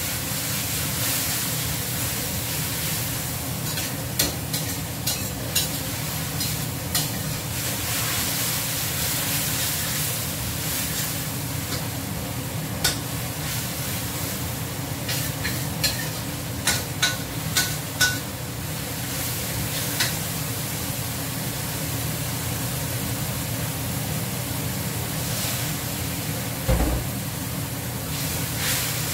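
Stir-frying in a steel wok on a gas stove: a steady sizzle under scattered sharp clinks and scrapes of a metal spatula against the pan, with a quick run of clinks about halfway through. A dull knock near the end.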